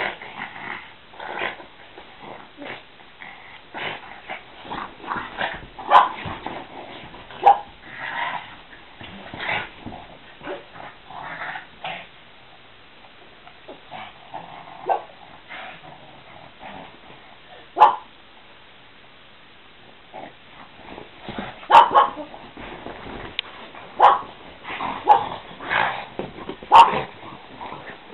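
A pug and a bull terrier play-fighting: a scatter of short, irregular dog vocalisations and scuffles, with a quieter stretch in the middle and a busier burst again near the end.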